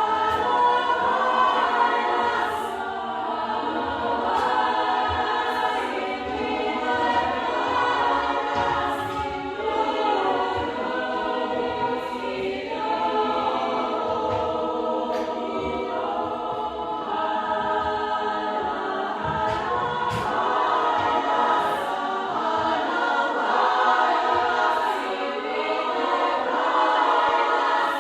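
Upper-voices chamber choir singing, with the sung words' consonants marked by crisp 's' and 't' sounds every second or two.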